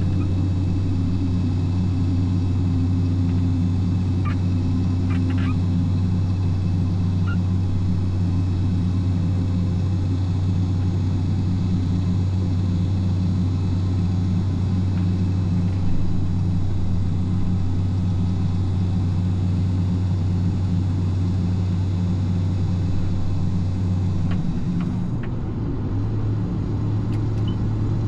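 Combine harvester's diesel engine running steadily under load with a deep hum; about 24 seconds in the hum shifts to a slightly higher pitch.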